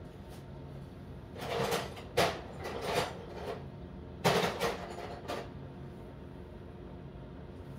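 About five metallic knocks and clatters of hand tools, the sharpest and loudest about two and four seconds in, each ringing on for a moment.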